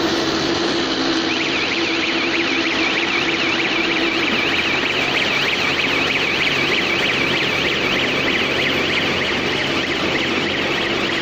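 Automatic round silage baler and wrapper machine running, a steady mechanical din with a low hum. From about a second in, a high electronic alarm warbles rapidly up and down over it.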